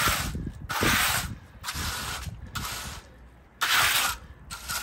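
Hand trowel scraping across wet concrete in a series of short sweeping strokes, with a pause about three seconds in, as the fresh concrete footing is levelled.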